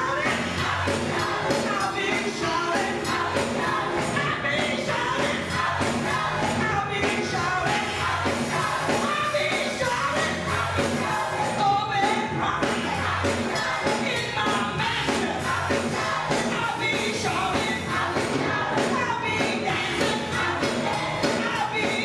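Gospel church choir singing full-voiced, accompanied by a keyboard, with a steady beat.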